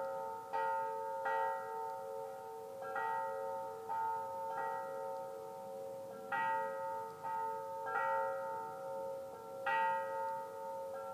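Tubular metal wind chimes ringing, struck anew at uneven intervals about once a second, several pitches sustaining and overlapping.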